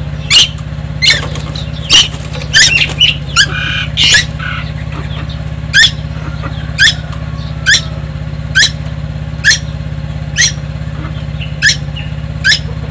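A young tuwu bird calling nonstop: short, sharp, loud notes that sweep down in pitch, repeated roughly once a second over a steady low hum.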